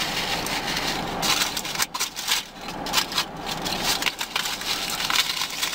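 Eating sounds close to the microphone: chewing, with an irregular run of crackles and clicks.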